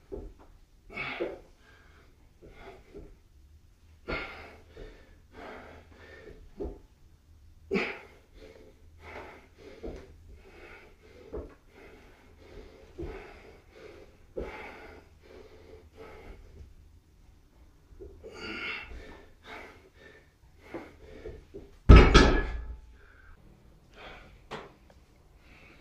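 A man's short, forceful breaths, about one with each squat rep, on and on, then one loud, heavy thump near the end.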